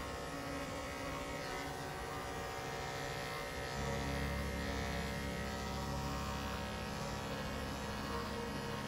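Corded electric dog clippers running with a steady motor hum and buzz as they work through a matted coat. The hum grows a little louder and lower about four seconds in.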